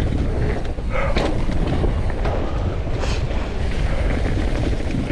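Mountain bike riding fast down a dirt trail: a steady rumble of tyres and the bike rattling, mixed with wind buffeting the camera microphone, with a few sharp knocks from bumps.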